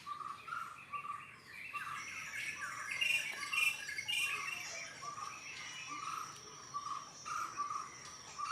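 Birds calling: one short note repeated about every half second, with a burst of mixed chirping over it in the middle, and a thin steady high tone joining about two seconds in.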